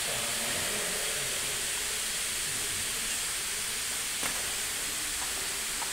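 A steady hiss with a few faint knocks about four seconds in and near the end.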